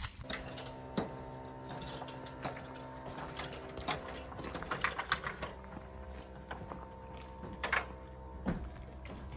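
Scattered knocks and clunks from a ladder and a solar panel being handled as a worker climbs onto a roof. The strongest knocks fall about three-quarters of the way through. A bed of steady sustained tones runs underneath and shifts a few times.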